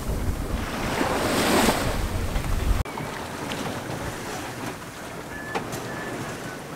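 Wind buffeting the microphone and waves rushing past a sailboat's hull in a choppy sea, swelling louder about a second in. About three seconds in the wind rumble cuts off abruptly, leaving quieter water and wind sound with a few light clicks.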